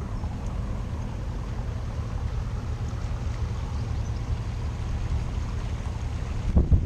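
Steady low rumble of a motor cruiser under way on a river: engine drone and water noise. About six and a half seconds in, wind buffeting on the microphone grows louder.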